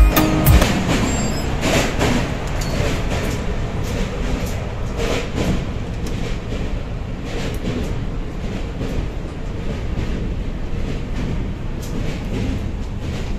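Running noise of a moving express passenger train heard from inside the coach: a steady rumble of wheels on the rails with scattered rattles and clacks. Background music cuts off right at the start.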